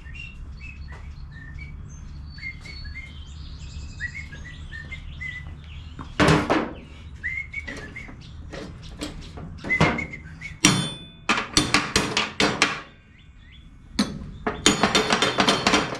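Hammer striking a riding-mower deck's spindle pulley to knock it loose: one heavy blow about six seconds in, then quick runs of sharp taps in the second half. Birds chirp in the background before the hammering starts.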